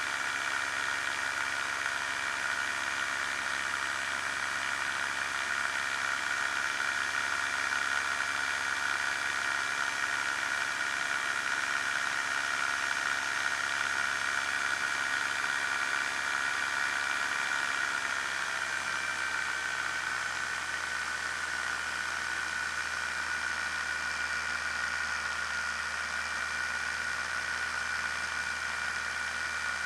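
Challenger II ultralight's pusher two-stroke engine running steadily in flight, with rushing air over the airframe. About eighteen seconds in, the engine note drops a little and holds lower, as with power eased back low over the snow on a ski-landing approach.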